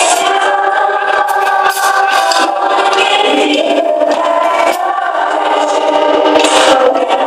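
Music with several singing voices, and a child drumming along on an acoustic drum kit, with cymbal crashes and drum hits cutting through the song.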